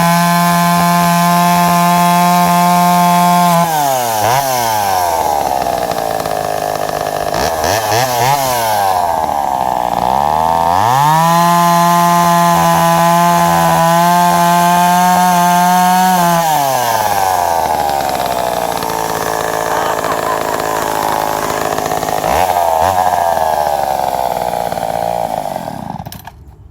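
McCulloch Pro Mac 10-10S two-stroke chainsaw at full throttle cutting a log round, its engine pitch falling and climbing again several times. The engine dies near the end as the saw runs out of fuel.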